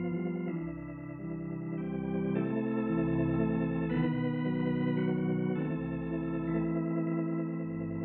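Organ music: slow, held chords with low bass notes beneath, the chord changing every second or two.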